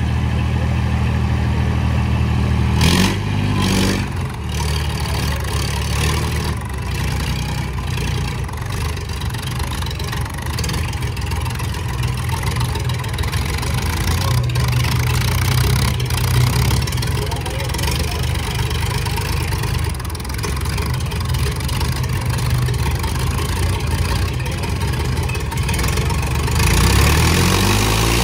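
Two diesel tractor engines, an Eicher 557 and a Sonalika 750, straining at full throttle as the tractors pull against each other in a chained tug-of-war. The engines run steadily at first, rev up sharply about three seconds in, labour under heavy load, and the revs drop right at the end.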